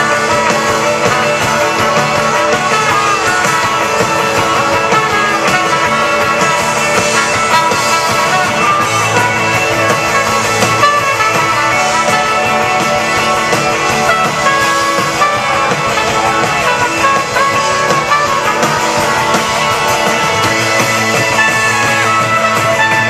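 Rock band playing live through a PA: electric guitars over drums in a continuous instrumental passage.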